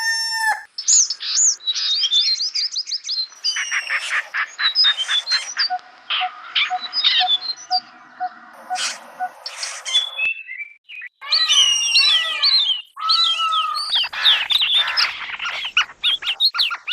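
Several birds chirping and calling together in a dawn chorus, with the tail of a rooster's crow cutting off in the first second.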